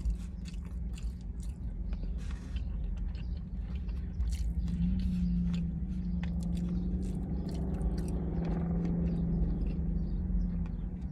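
Close-up chewing and crunching of tortilla chips and food: many small, quick crunches and mouth sounds. A steady low hum runs underneath, louder from about halfway through.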